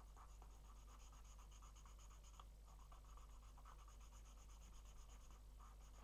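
Felt-tip marker scribbling on sketchbook paper as a small patch is coloured in: faint, quick back-and-forth strokes.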